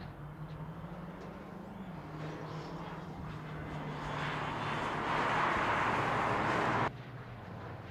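BMW X6 M's twin-turbo V8 running on track, its note climbing and then dropping about two seconds in as it shifts. A rush of engine and passing noise then swells louder and cuts off suddenly near the end.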